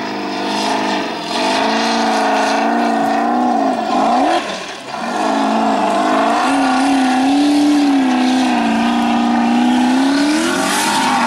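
Formula Offroad hill-climb car's engine revving hard, its pitch rising and falling as the throttle works. About four and a half seconds in the note drops sharply, then climbs back.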